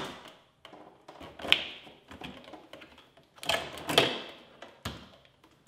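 Hard plastic clicks and clatter of a refrigerator ice maker assembly being unclipped from its locking clip and slid forward out of its compartment. There is a sharp click about a second and a half in, a longer rattle around four seconds, and a last click near the end.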